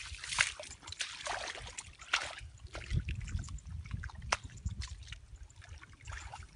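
Hands splashing and sloshing in shallow muddy paddy water, reaching inside a bamboo fish trap to feel for trapped fish, in irregular splashes, with a sharp click about four seconds in.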